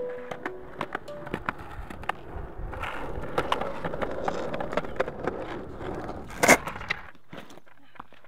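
Skateboard wheels rolling on a concrete sidewalk, with repeated sharp clacks over the joints, growing louder as the board comes closer. About six and a half seconds in there is a single loud crash as the board stops short and the rider falls onto the concrete, then the rolling stops.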